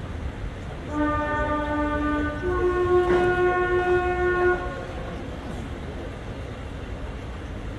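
Two-tone horn of an approaching British diesel multiple unit: a lower note about a second in, then a higher note, together lasting about three and a half seconds.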